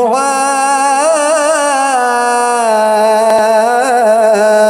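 A man's solo voice chanting an Arabic religious ibtihal, holding one long melismatic note on the word "wa-taqabbal" with small wavering turns of pitch.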